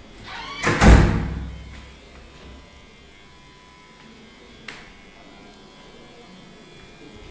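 A door bangs heavily about a second in, and its low rumble dies away over nearly a second. A single sharp click comes near five seconds in, over a faint steady hum.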